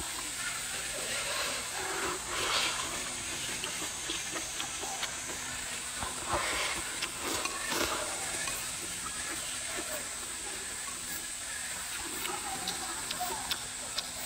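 A person slurping rice noodles and chewing. There are airy slurps about two seconds in and a longer run of them between about six and eight seconds in, over a steady high hiss.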